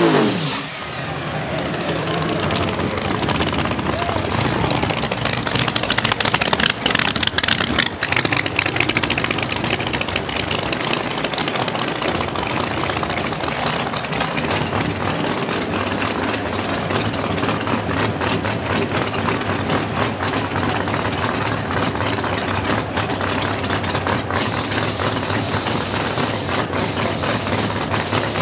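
Drag race car engines idling and revving, over crowd chatter. A steady high hiss sets in near the end.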